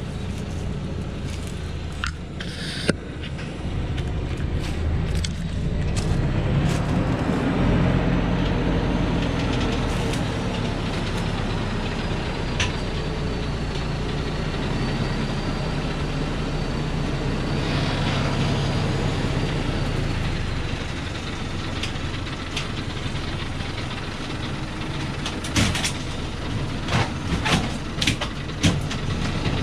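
Diesel engine of a Thaco Forland truck loaded with acacia logs, working hard under load as it climbs a steep dirt track toward the listener, with a faint high whine over it in the middle. Near the end come a series of sharp knocks and rattles as the truck passes close.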